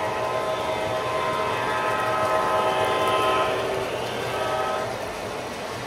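O gauge model CSX Dash 8 diesel locomotive sounding its electronic multi-chime horn in one long blast of about five seconds that stops near the end, over the steady rumble of the train rolling on the three-rail track.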